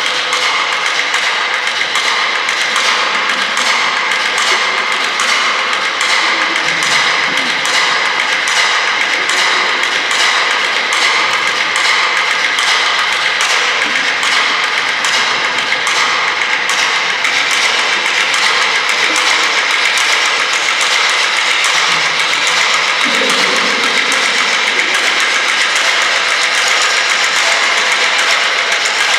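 A percussion trio playing a contemporary piece on objects at a table: a dense, continuous rattling texture of many fast small strokes, held at a steady level, with a few low rumbling swells.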